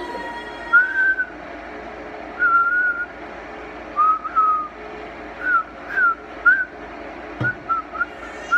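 A person whistling through pursed lips: about ten short, wavering notes at much the same pitch. Some come singly, others in quick runs of two or three.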